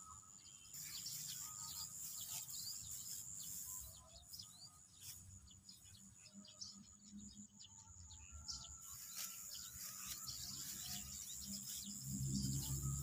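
Birds chirping in short calls over a steady high insect whine, as in an open rice paddy. A low steady tone comes in near the end.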